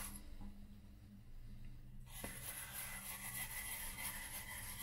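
Quiet for about two seconds, then a small click and faint, steady scrubbing of an old toothbrush on a car instrument-cluster board wetted with brake cleaner.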